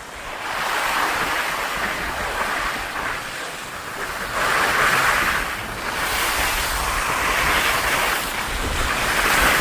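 Skis sliding and scraping over snow, getting louder in swells about halfway through and again near the end, with wind rumbling on the microphone.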